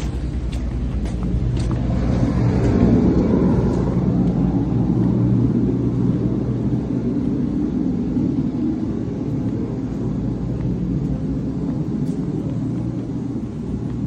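Heavy truck diesel engine idling: a steady low rumble that swells a little a few seconds in, with a few faint clicks over it.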